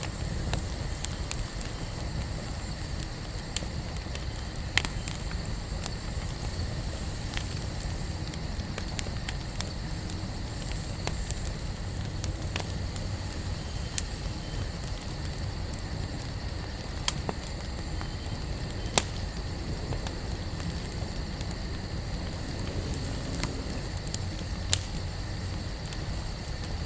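Wood campfire burning: a steady low rush of flame with scattered sharp crackles and pops from the burning wood.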